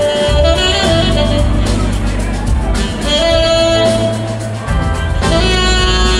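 Live band music: held melodic notes over a steady bass line.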